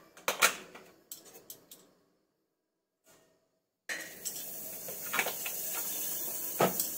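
A metal spoon clinks and knocks against a pressure cooker pot several times as butter is put in. About four seconds in, a steady hiss starts: the butter sizzling as it melts in the hot cooker, with a couple of knocks from the spoon.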